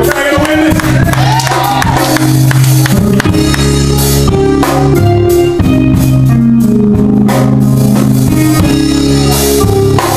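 Live gospel music, loud throughout: young singers on handheld microphones sing over electric keyboard chords, with percussion strikes in the mix.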